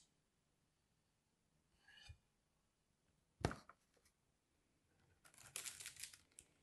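Bars of soap being handled: one sharp tap a little past halfway, then a short run of crackly scraping and clicking near the end as a bar is worked loose from among the others.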